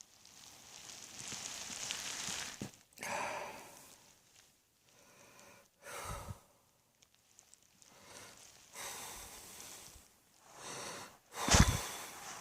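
A person breathing in and out with long, airy breaths between coughs, and one sudden loud cough near the end.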